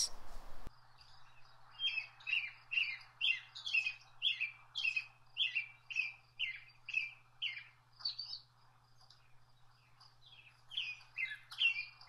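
American robin singing, played from a recording: a steady run of short whistled notes, about two or three a second, a pause of about two seconds, then more notes near the end, over a faint low hum.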